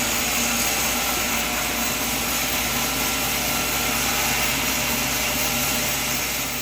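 Sawmill running steadily, a motor drone under the constant hiss of the saw.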